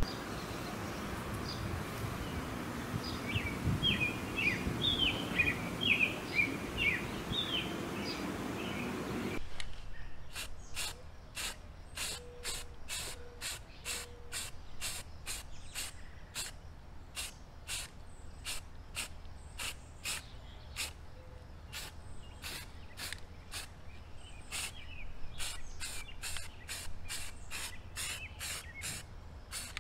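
Birds chirping over steady outdoor background noise. About a third of the way in this gives way to short, repeated hisses from an aerosol spray can, roughly two bursts a second, as red primer is sprayed onto a steel pole mount.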